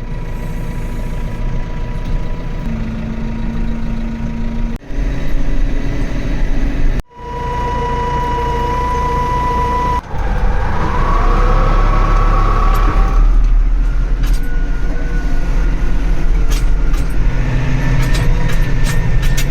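Tractor engine running under load across several short clips that cut off abruptly. About ten seconds in, the engine note climbs.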